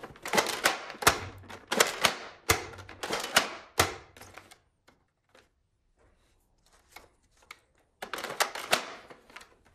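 Hard plastic toy foam-dart blaster being handled: a quick run of sharp clicks and clatters, a pause of a few seconds, then another cluster of clicks near the end.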